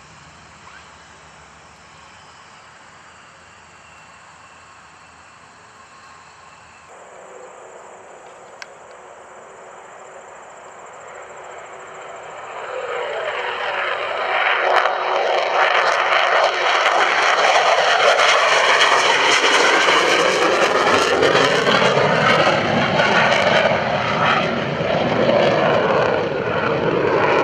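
F-16 fighter jet engine that grows from faint to loud over about fifteen seconds as the aircraft nears, with a sweeping, shifting tone once it is loud.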